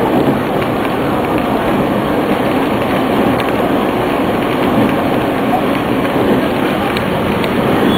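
Electric commuter train running at speed, heard from inside the carriage: a steady rumble of wheels on the rails, with a few faint clicks near the end.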